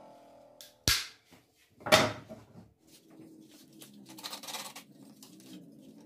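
Two knocks about a second apart, the first sharp and short, the second louder with a short ringing tail, followed by faint scraping and rustling of hand work at a wooden workbench.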